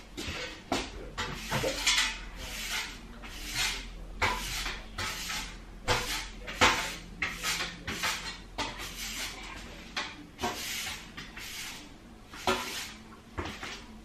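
Broom sweeping a tiled floor: short, scratchy brushing strokes at an uneven pace, about one or two a second.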